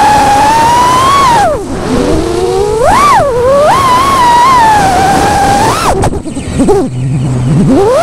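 FPV freestyle quadcopter's brushless motors and propellers whining, the pitch swinging with the throttle. The whine drops low twice, about a second and a half in and again about six seconds in, as the throttle is chopped, then rises sharply as the motors are punched back up.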